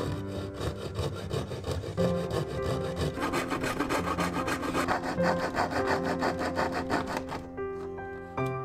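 Fine-bladed fret saw cutting through a thin wooden board in quick back-and-forth strokes, following the curves of jigsaw puzzle pieces. The sawing stops near the end, leaving background music.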